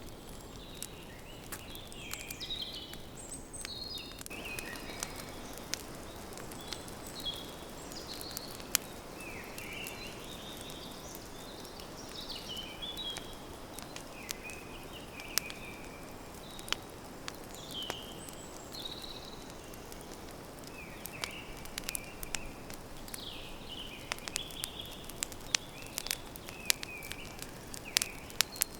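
Campfire crackling, with sharp pops scattered irregularly, over a forest ambience of small birds chirping again and again.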